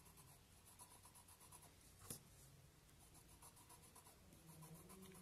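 Faint scratching of a coloured pencil on paper, many quick short strokes of shading, with one small sharp tap about two seconds in.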